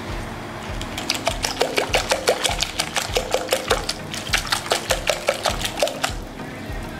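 A coil spring whisk beating liquid egg batter in a glass bowl: rapid regular clicking and sloshing, about six strokes a second, as the wire coil strikes the bowl. It starts about a second in and stops about a second before the end.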